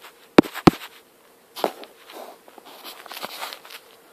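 Handling noise from the recording device being fumbled with: two sharp knocks less than a second in, then scattered light taps and rustles.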